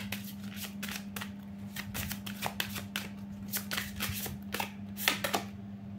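A tarot deck being shuffled by hand: a quick, irregular run of card snaps and slides that thins out near the end.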